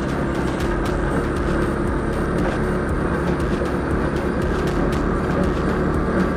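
Moped's small engine running steadily while riding, mixed with road and wind noise and faint rattling clicks.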